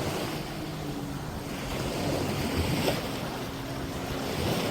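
Sea waves washing on the beach, with wind buffeting the microphone and a faint low steady hum underneath.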